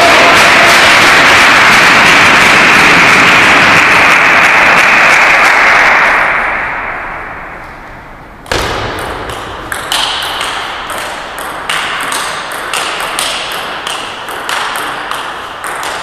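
A loud steady rushing noise that fades away, then from about halfway a table tennis rally: the ball clicking sharply off bats and table two or three times a second.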